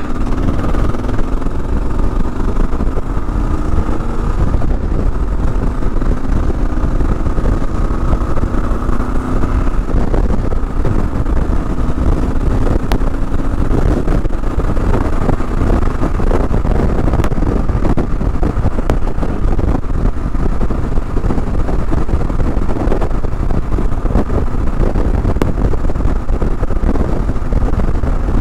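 2022 Kawasaki KLR 650's single-cylinder four-stroke engine running under way through a Lexx MXe slip-on exhaust, with wind rumbling on the microphone. The engine note climbs over the first ten seconds or so as the bike accelerates, then carries on steadily.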